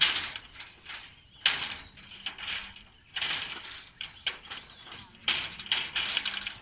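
Wire-mesh fence rattling as a chained Chippiparai hound bites and tugs at it, in repeated sharp noisy bursts about once a second.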